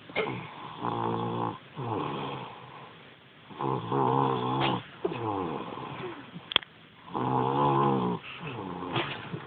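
A three-year-old child snoring in her sleep: three loud snores, about a second each and roughly three and a half seconds apart, each followed by a softer breath out. A single sharp click comes about two-thirds of the way through.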